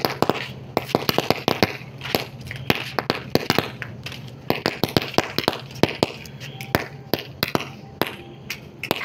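Paper roll caps for a toy cap gun burning in a pile, the caps going off in rapid, irregular sharp pops and cracks, several a second, as the fire reaches them. A low steady hum runs underneath.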